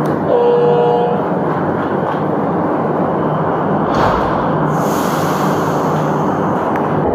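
Metro train rumbling at the station platform, loud and steady. A short electronic tone sounds about half a second in, and a high hiss starts a little past the middle.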